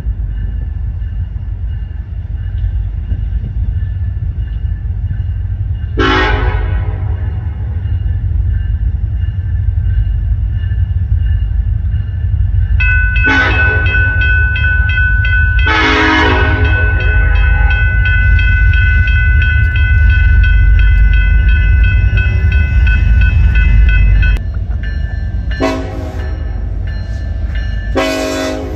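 Diesel freight locomotive's air horn sounding over the steady low rumble of the train: a short blast about six seconds in, a long blast of about ten seconds that cuts off sharply, then two more short blasts near the end.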